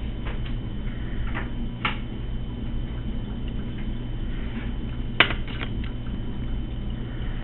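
A fettling knife and fingers working a clay relief on a board: a few faint, scattered clicks and scrapes, with one sharper click about five seconds in, over a steady low hum.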